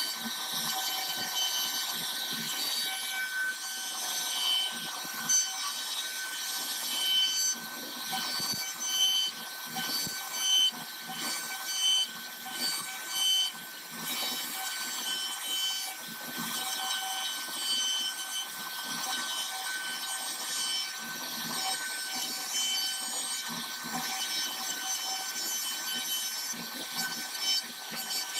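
CNC router spindle running with a steady high whine as its bit cuts a design into a wooden panel. Short, louder rasping bursts come and go as the cutter bites into the wood.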